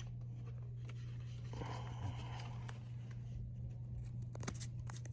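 Blue painter's tape being handled for a tag, with a short rasp about a second and a half in and a few light clicks near the end. A steady low hum runs underneath.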